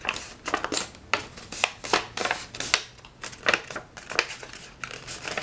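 A sheet of paper being folded by hand along its creases, giving irregular crisp crackles and rustles as the folds are pressed in.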